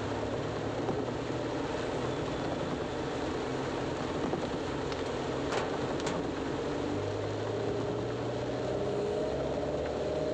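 Inside a car's cabin: a steady hiss of rain and tyres on a wet road over the low hum of the running engine. Two sharp clicks come about half a second apart a little past the middle, and the engine note rises slightly near the end.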